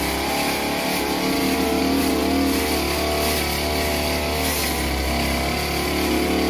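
Two-stroke 328-type backpack brush cutter engine running at high throttle while its blade cuts through tall grass and weeds, the pitch wavering slightly under the load of the cut.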